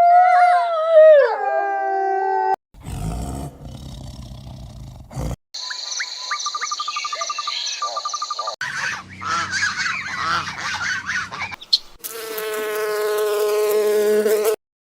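A string of short animal-call recordings spliced together with abrupt cuts. It opens with a pitched cry that slides down over about two seconds and then holds, is followed by noisy stretches and a rapid even buzzing pulse, and ends with a steady held call that grows louder over its last few seconds.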